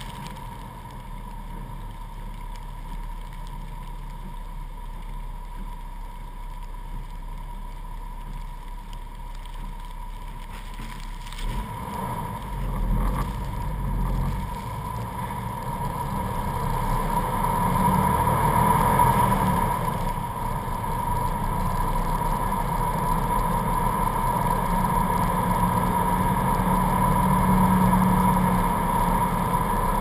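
Jeep Wrangler driving through blizzard snow, its engine and the road and wind noise picked up by a camera on the hood, a steady low rumble with a faint steady whine. It grows louder about twelve seconds in, with a few thumps, and stays louder after.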